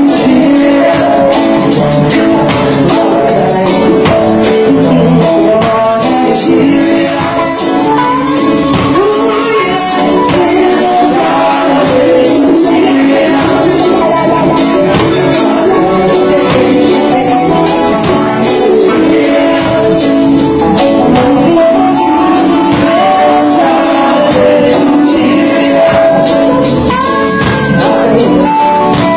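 Live reggae band playing: a woman sings lead over electric guitar, drum kit and keyboards, with a steady beat.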